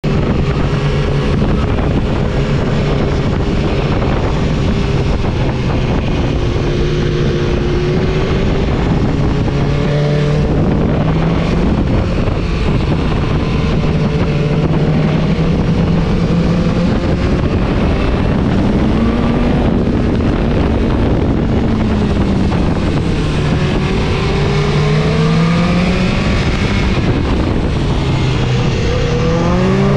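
BMW S1000-series inline-four motorcycle engine running on the move, its pitch rising and falling over and over with throttle and gear changes. Wind noise rushes steadily over the microphone.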